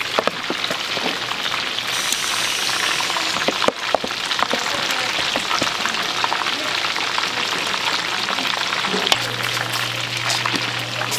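Food frying in hot oil: a dense, steady crackle and sizzle with scattered sharp pops. A low steady hum joins about nine seconds in.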